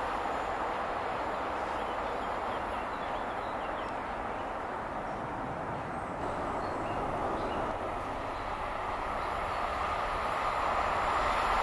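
Trains on an electrified main line: a steady rushing rumble of rolling stock on the rails, growing louder near the end as another train approaches.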